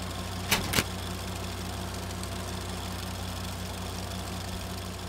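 Two sharp camera-shutter clicks about a quarter second apart, about half a second in, over a steady low hum that pulses evenly.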